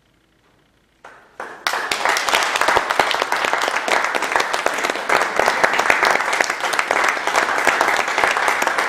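Audience applause: about a second of near silence, then a few first claps, and dense clapping from the whole audience from under two seconds in.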